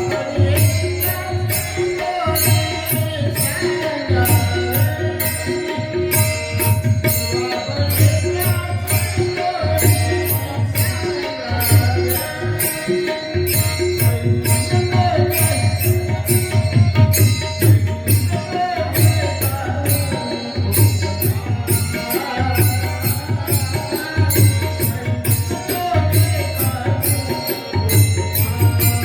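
Marathi devotional kirtan music: a melody, likely sung, over a steady drum beat with a regular bright, high percussion stroke keeping time.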